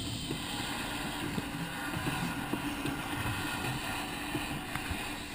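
Steady, muffled underwater rumble and hiss picked up by a submerged camera, with a few faint ticks.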